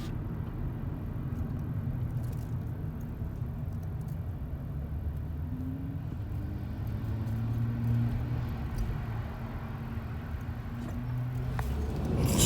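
Car driving along: steady low road and engine rumble heard from inside the moving vehicle.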